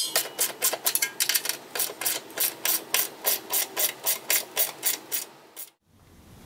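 Hand ratchet socket wrench clicking steadily, about four clicks a second, as it runs an 8mm cone lock nut onto a hook bolt; the clicking stops about five and a half seconds in.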